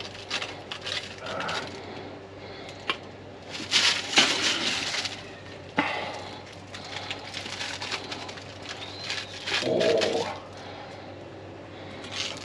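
Food-preparation handling noises: scattered clicks and knocks, with a louder stretch of rustling about four seconds in and a sharp knock near six seconds.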